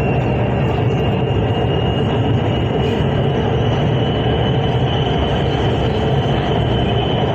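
Lahore Orange Line electric metro train running at speed, heard from inside the carriage: a steady low rumble with a thin high whine that rises slowly in pitch.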